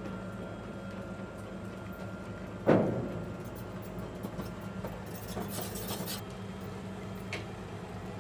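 Heavy vehicle engine running steadily, with one loud metallic clang that rings briefly about two and a half seconds in, a short hiss near six seconds and a small click near the end.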